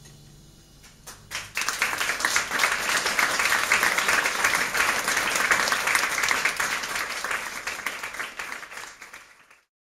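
Audience applauding after a jazz piece ends: the last low note fades out, then clapping breaks out about a second and a half in, holds, tapers off and cuts off suddenly near the end.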